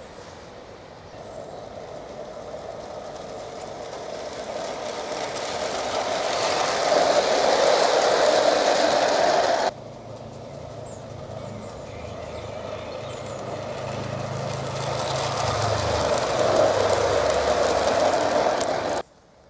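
Gauge 1 garden-railway model train running on metal track, its wheels rumbling on the rails and growing louder as it approaches. The sound cuts off suddenly about ten seconds in, then builds again with another approach and cuts off just before the end.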